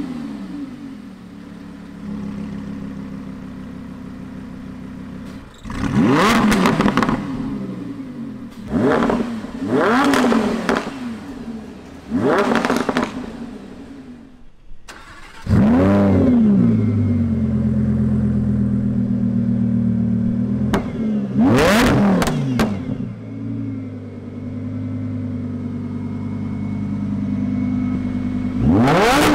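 Lamborghini Huracán 5.2-litre V10 idling and being revved through its exhaust in sharp blips, several rising and falling revs close together. About halfway there is a brief break, then the engine flares up loudly, settles back to idle between more blips, and revs again at the end.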